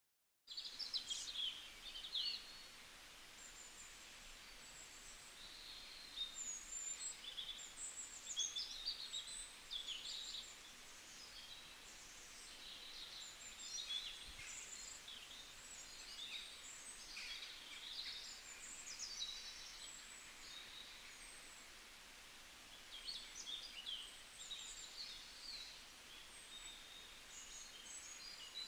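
Small birds chirping, short high calls scattered throughout over a faint steady hiss.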